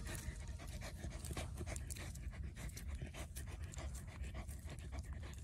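A corgi panting hard, worn out from a long bout of digging.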